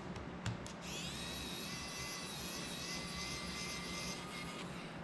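A click, then a pen-style electric precision screwdriver running for nearly four seconds with a steady high whine before it stops, driving a screw into a cinewhoop drone's prop guard.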